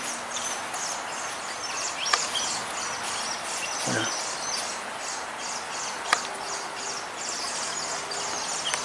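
Small birds chirping busily with quick, high-pitched calls throughout, with a sharp click about two seconds in and another about six seconds in.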